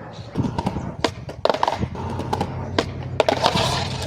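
Skateboard rolling on concrete with a series of sharp clacks and knocks from the board's tail and wheels hitting the ground during a trick attempt. A low steady hum joins about halfway through.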